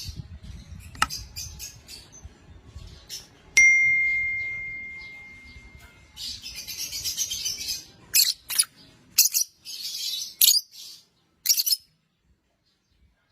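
A pair of small pet parrots chirping in short high calls, with two spells of dense chattering in the second half. About a third of the way in comes a single bell-like ding that rings on and fades over a couple of seconds.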